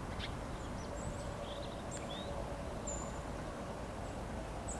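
Small birds chirping: several short high chirps and one longer high whistle about three seconds in, over a steady low outdoor rumble.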